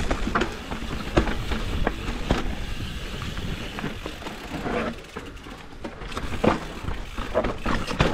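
Electric mountain bike clattering down a rough, rocky trail: a dense run of sharp knocks and rattles from the tyres, chain and frame over a steady rumble. It eases off briefly about five seconds in, then the knocking picks up again.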